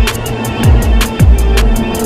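Electronic background music: a deep bass note that drops in pitch on each beat, roughly every half second, under quick hi-hat ticks and a sustained synth tone.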